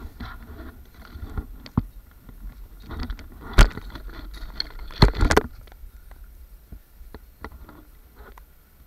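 Footsteps and rustling through long grass, with irregular clicks and a few loud knocks about three and a half and five seconds in.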